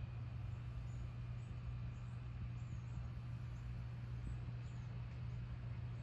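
A steady low hum throughout, with faint high chirps of small birds a few times over it.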